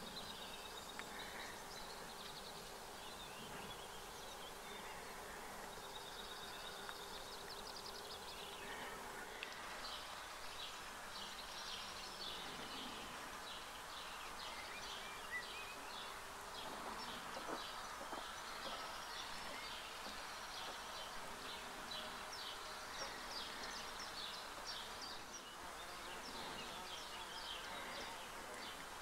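Faint insect sounds: a low steady buzzing hum through the first several seconds, then, from about ten seconds in, short high chirps repeating about once or twice a second.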